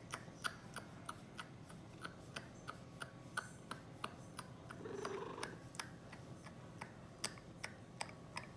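Domestic cat purring under a steady run of sharp ticks, about three a second; the purr swells louder about halfway through.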